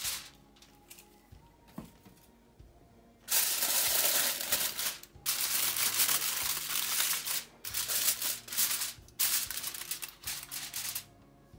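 Aluminium foil crinkling as a sheet is pressed and crimped down around the rim of a baking dish. It starts about three seconds in and comes in several long rustling stretches with short pauses between them.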